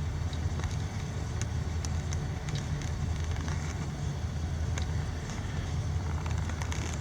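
CSX freight train's diesel locomotives running, a steady low engine rumble with scattered light ticks.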